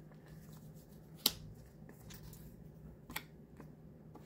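Paper booklets, a printed card and tissue wrapping being handled: faint rustling broken by a few sharp snaps or taps, the loudest about a second in.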